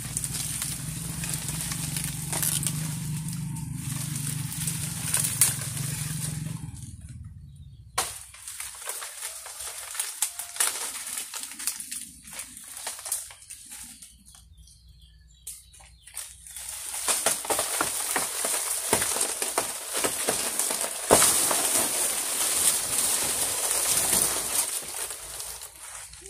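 Dry banana leaves and leaf sheaths rustling and crackling as they are pulled and torn off the trunk, loud at the start and again in the second half with a quieter stretch in the middle. A low steady hum runs under the first several seconds.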